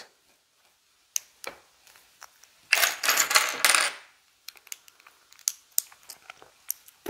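Small hard plastic clicks of LEGO pieces being handled, with a clatter of loose LEGO bricks lasting about a second, starting near three seconds in.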